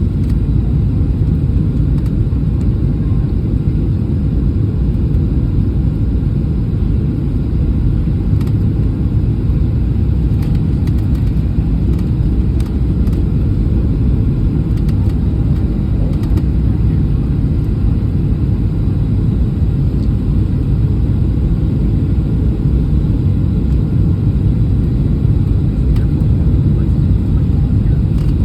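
Boeing 737 cabin noise: a steady, loud low rumble of the engines and the airflow over the airframe, heard from inside the cabin, with a few faint clicks.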